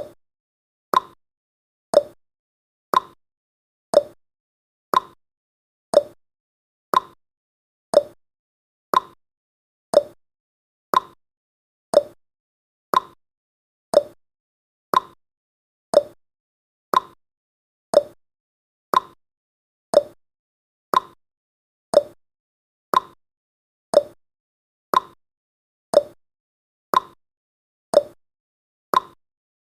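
Clock-like ticking sound effect of a countdown timer: one short, sharp tick each second, evenly spaced.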